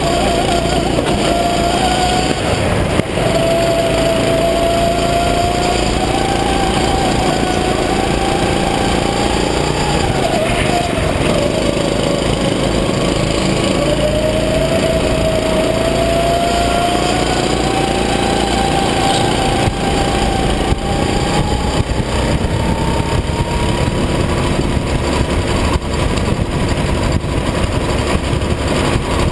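Rental go-kart engine running at speed on track, its pitch dipping as the kart slows for a corner about ten seconds in, then climbing and holding higher in the last third, with steady wind noise over the helmet-mounted microphone.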